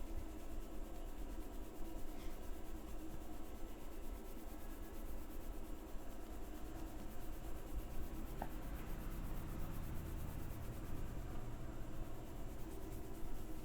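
A barber's hands rubbing and massaging a person's head and hair, a steady continuous rubbing.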